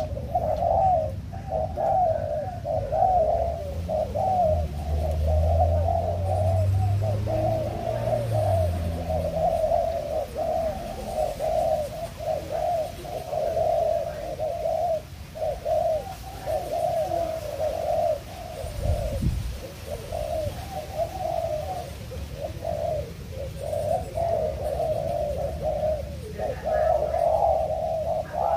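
Spotted dove cooing over and over, rolling coos that follow each other with only short breaks: a caged decoy dove calling.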